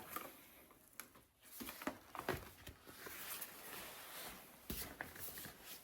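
Faint plastic handling noise, soft rustling with a few light taps and clicks, from a flat, deflated inflatable toy shield being handled.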